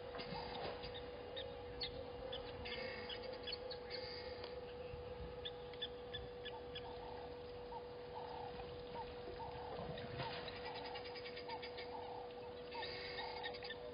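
African bush ambience: a bird gives a series of short, low hooting calls, about two a second, through the second half, over scattered clusters of high chirps and ticks. A steady faint hum runs underneath.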